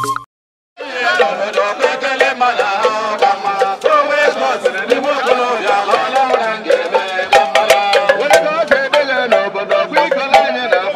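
Men singing a traditional Igbo song together, a lead voice on a microphone with others joining in, over sharp hand-percussion strikes. It begins after a moment's silence just under a second in.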